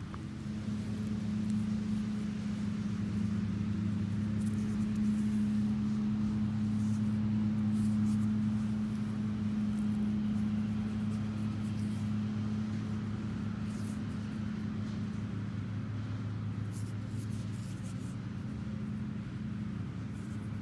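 Steady low machine hum running throughout, a little louder around the middle, with faint scattered clicks over it.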